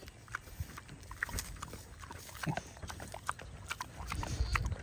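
Scattered crackling footsteps in dry leaf litter, with low grunts from a Vietnamese potbelly pig growing louder near the end.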